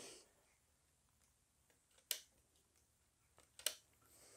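Two short sharp clicks about a second and a half apart, the second slightly doubled, from a hand handling the outboard motor's casing, against near silence.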